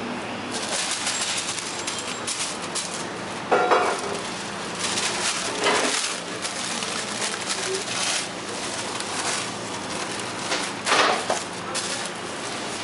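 Paper and flatbread rustling as sandwiches are wrapped by hand, over a steady kitchen hum. A couple of short louder sounds break in, about four seconds in and again near the end.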